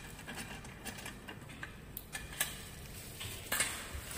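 Small, irregular metal clicks and ticks as a hex key turns the screws of a connecting strip joining two sections of a metal rail, with a louder cluster of clicks near the end.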